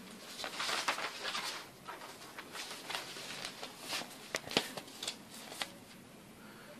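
Printed paper sheets rustling as pages are lifted and turned by hand, with a few sharp crinkles of the paper between about four and five and a half seconds in.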